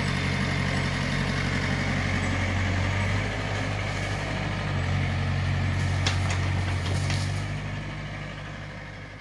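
Small excavator's diesel engine running steadily, with two sharp knocks about six and seven seconds in. The sound fades away over the last two seconds.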